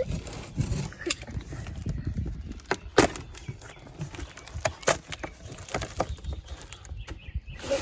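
Cardboard boxes being handled and opened: irregular knocks, scrapes and rustles, with one sharp knock about three seconds in.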